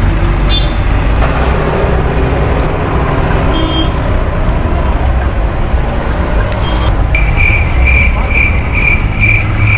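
Steady road traffic noise with a strong low rumble. About seven seconds in, a rapid electronic beeping starts, about three beeps a second.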